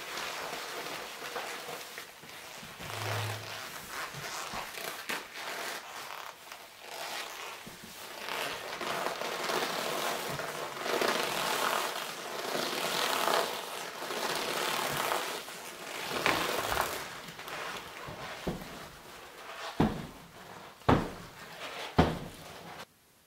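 Leather clothing and thin leather gloves creaking and rubbing as the wearer moves his hands, with three sharp knocks about a second apart near the end, after which the sound cuts off suddenly.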